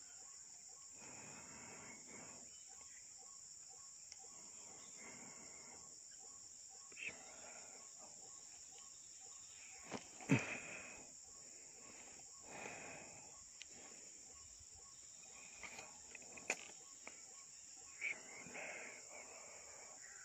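Steady high-pitched drone of crickets and other insects, with scattered rustling and a few brief knocks, the loudest about halfway through.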